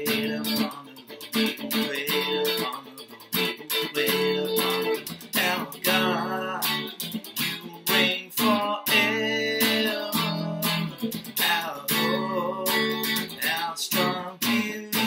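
Telecaster-style electric guitar strummed in chords, with a man singing along in places.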